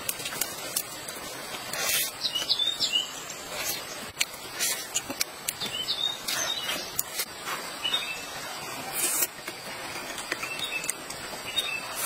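Small birds chirping in short, scattered calls, over a background of sharp crunchy crackles from biting and chewing grilled food.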